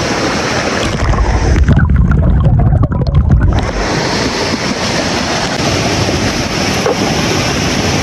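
Fast mountain stream rushing and splashing over rocks, heard close up as a steady roar of water. About a second in it turns muffled and deep for a couple of seconds as the microphone dips to or into the water, then the full rushing sound returns.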